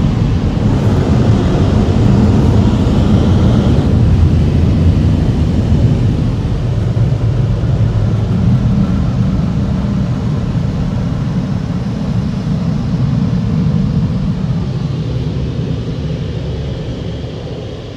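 Car wash air dryer blowers running with a loud, steady rush of air, fading gradually and dropping off near the end as the car pulls away from them.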